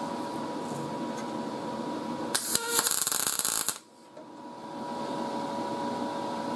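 MIG welder with 0.023-inch wire laying a single spot weld through a hole in a thin sheet-metal patch panel: the arc crackles for about a second and a half, starting about two and a half seconds in, then cuts off suddenly. A steady hum runs under it.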